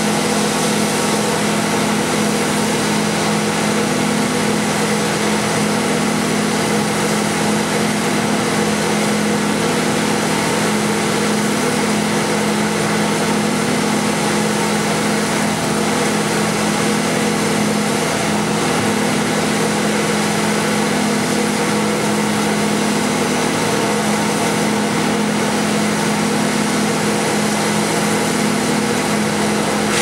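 Engines of tree-service equipment, a bucket truck and a wood chipper, idling steadily at a constant pitch.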